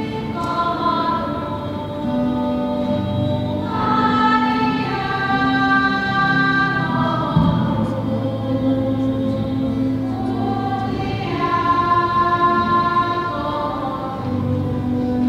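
Church choir singing a slow hymn, holding long notes that change pitch every second or two.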